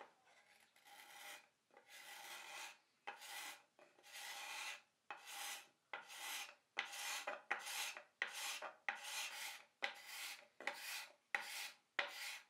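Sandpaper rubbed by hand over a dried wood-filler patch in burled veneer, sanding it flush. Repeated back-and-forth strokes, slow and long at first, then quicker and shorter, about two a second.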